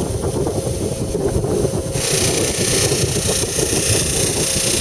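Bench buffer motor running steadily with its compound-loaded buffing wheel spinning. About two seconds in, a knife blade is pressed against the wheel and a loud hiss of polishing joins the motor.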